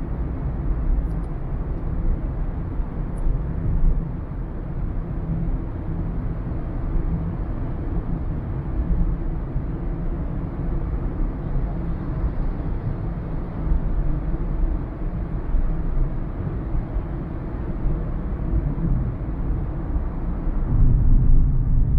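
Steady low rumble of tyre and engine noise from a car being driven, heard from inside the cabin, getting a little louder near the end.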